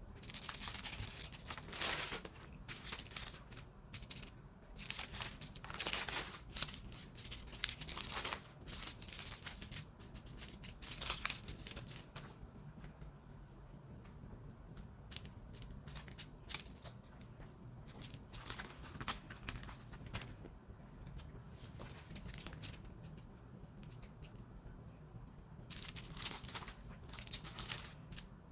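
Small plastic bags of diamond painting drills crinkling and rustling as they are handled and sorted, in irregular bursts that are busiest in the first half and again near the end.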